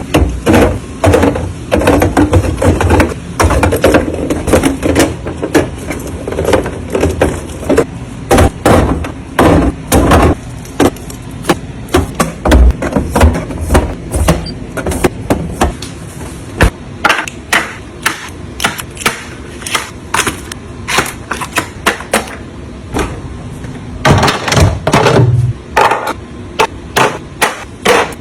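Groceries and storage containers being handled and set down: a busy run of irregular clacks, knocks and light thuds, with rustling in between.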